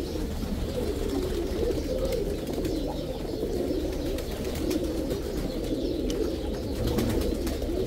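Many caged domestic pigeons cooing at once, their low coos overlapping continuously.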